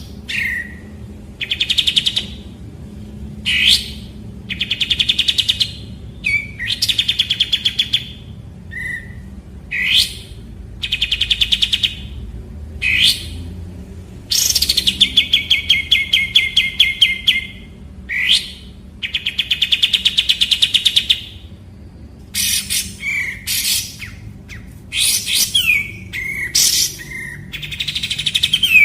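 A 'kapas tembak' songbird calling: quick rising whistles alternating with rapid rattling trills of a second or two each, the trills coming thicker and more varied near the end.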